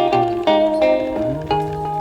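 Background music: plucked guitar notes over a bass line that slides up about a second in.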